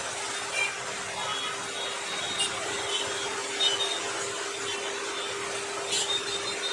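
Steady background noise: an even hiss and rumble with a constant low hum, broken by a few faint short clicks.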